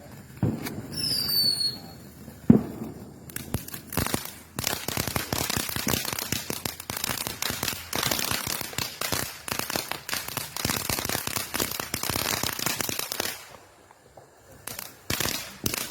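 Consumer fireworks going off: a launch with short whistles, a single loud bang, then about ten seconds of dense crackling that cuts off suddenly, followed by a few scattered pops near the end.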